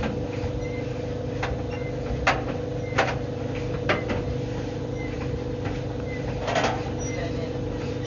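White Knight tumble dryer running: a steady motor hum with a constant tone, while the clothes tumbling in the turning drum give a handful of short sharp knocks and clicks.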